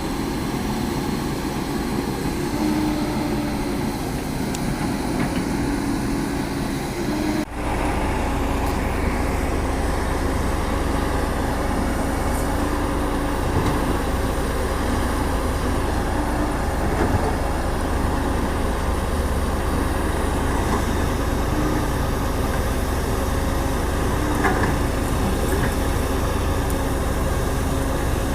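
CAT 320D hydraulic excavator's diesel engine running steadily under digging load, its note wavering slightly as the hydraulics work. A brief break comes about seven and a half seconds in, after which the deep rumble is heavier.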